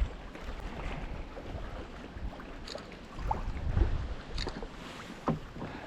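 Wind rumbling on the microphone, with a few light clicks and knocks of handling in a kayak.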